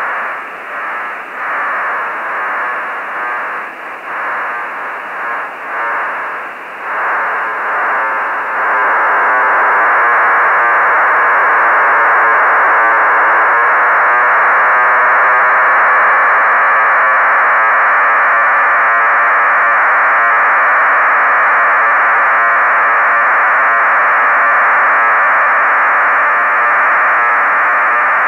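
HuskySat-1's telemetry downlink heard through a ham radio receiver: a dense, hissy data signal filling the audio band below about 3 kHz. It fades in and out for the first eight seconds or so, then holds steady and strong.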